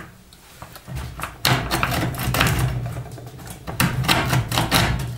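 Hacksaw blade sawing back and forth across a steel bolt beside a gas stove burner, in quick metal-on-metal strokes about two a second, starting about a second in. The bolt is seized from overheating and dried-on spills, so it is being cut off rather than unscrewed.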